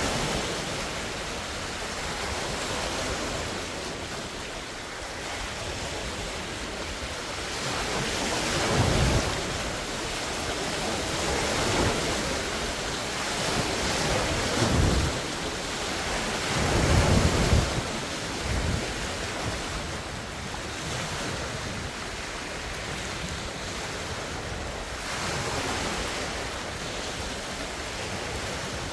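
Large wind-driven lake waves washing and splashing in strong wind, with several louder surges around the middle.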